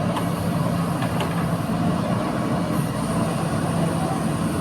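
Backhoe loader's diesel engine running steadily, with a couple of light clicks in the first second or so.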